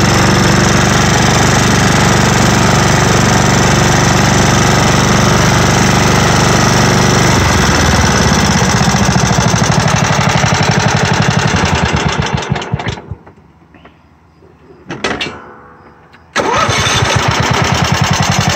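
Simplicity Regent lawn tractor's newly swapped engine running steadily, then dropping off at about 7 seconds and shutting down at about 13 seconds. After a brief crank at about 15 seconds it starts again and keeps running.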